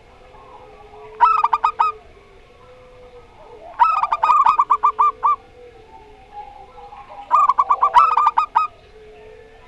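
Zebra doves (perkutut) cooing: three phrases of rapid staccato notes, about a second in, around four seconds and near eight seconds, with a faint steady lower tone underneath.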